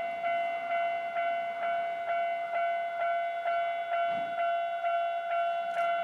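Japanese level-crossing warning bell ringing: an electronic ding repeated evenly, a little over twice a second, signalling that a train is approaching and the crossing is closing.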